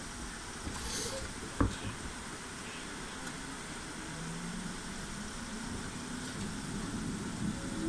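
Cab of a 211-series electric train pulling away: a short hiss of air and one sharp clunk early on, then a low motor hum that rises slowly in pitch as the train starts to move.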